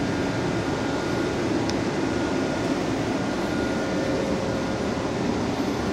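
Steady interior noise of a Transtech Artic low-floor tram: an even low hum and rush, with faint thin whines held above it.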